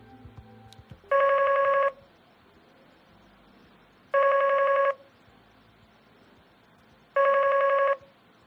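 Matrix Eon 48P desk phone ringing with an incoming call from extension 3002: an electronic trilling ring, sounding three times, each ring just under a second long and about three seconds apart.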